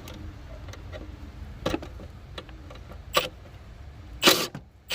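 A few sharp metallic clicks, about a second and a half apart with the loudest near the end, as a 10 mm bolt on the A/C suction hose is worked loose with a hand wrench.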